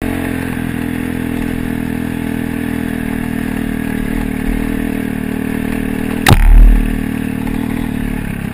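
Dirt bike engine running at steady revs while riding, with a sharp knock about six seconds in followed by a short low thump, the loudest moment.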